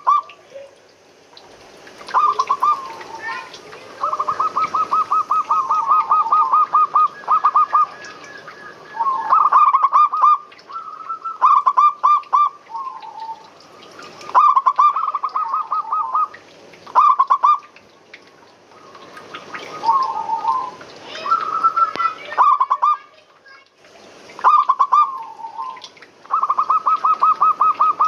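Zebra dove (perkutut) song: repeated phrases of rapid, stuttering coos, about ten of them in turn with short pauses between.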